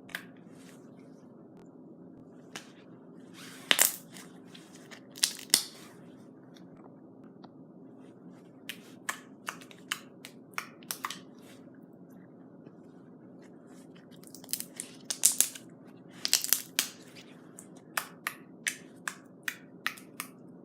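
Small lump of slime with foam beads (floam) being squished and poked by hand, giving scattered sharp wet pops and clicks that come in little clusters, over a faint steady hum.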